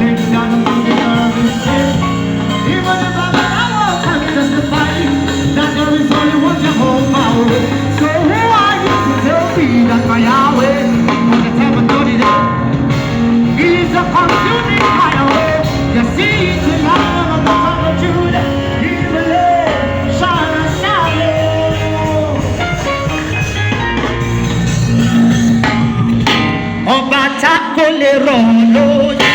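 Upbeat gospel praise band music with drum kit, bass and gliding melodic lines. Near the end the bass drops out and hand percussion takes over.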